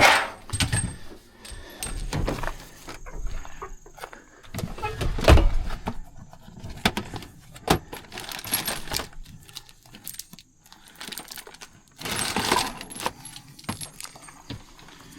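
Hand tools and plumbing parts being handled: irregular metallic clinks, rattles and knocks, the loudest knock about five seconds in and a denser rattle near the end.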